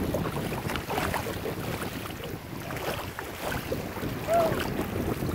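Wind buffeting the microphone over water sloshing and splashing around people wading in shallow water, with a short high call about four seconds in.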